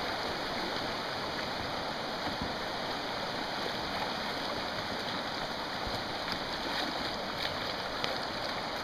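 Shallow river rapids rushing: a steady wash of moving water, with a few faint light clicks in the second half.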